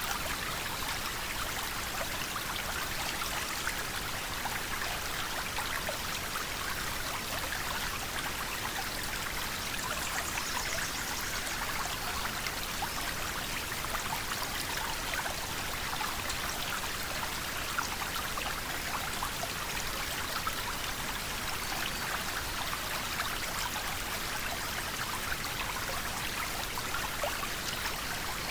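River water flowing steadily, an even rush with a fine bubbling and splashing texture.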